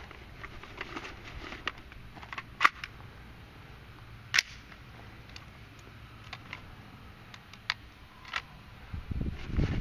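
AR-15 carbine being loaded: sharp metallic clicks and clacks as the magazine is seated and the action is worked, the two loudest a little under two seconds apart, with a few lighter clicks later. A low rumble rises near the end.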